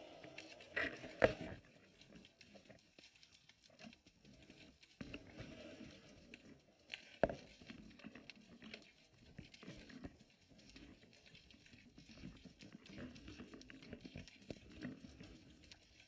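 Muffled underwater noise picked up by a GoPro inside its waterproof housing: a faint, uneven low rumble with a few sharp knocks, the loudest about a second in and another about seven seconds in.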